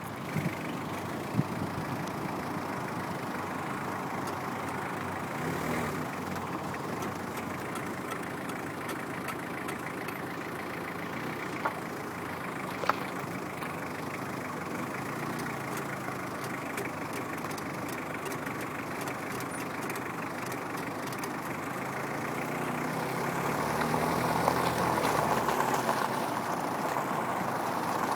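Peugeot car running, making a noise as the brake pedal is pressed and released. There are a few sharp clicks, and the sound grows louder about 23 seconds in.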